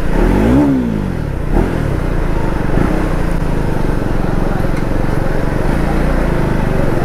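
KTM Duke 390 single-cylinder engine: a quick throttle blip that rises and falls in pitch in the first second, then running steadily at low revs as the bike rolls slowly.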